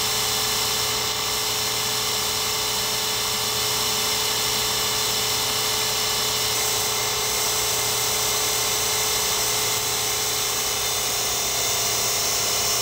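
Miniature Sherline CNC cam grinder running, its small high-speed grinding spindle giving a steady high whine that holds unchanged throughout.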